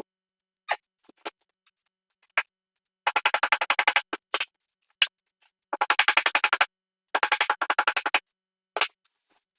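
Electronic background music: rapid repeated synthesizer notes in short runs, broken by pauses.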